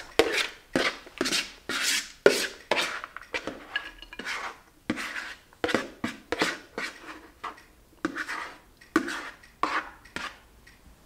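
A spoon scraping and knocking against a large plastic bowl as pasta salad is scooped out onto a plate, in repeated strokes about two a second.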